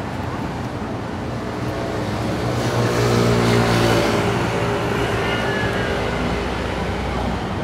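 City street traffic, with a motor vehicle passing close: its engine and road noise swell to their loudest about three to four seconds in, then fade back into the general traffic.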